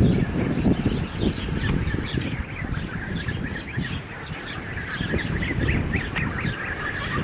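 A flock of young goslings and ducklings peeping: many short, high calls in quick succession over a low rumble.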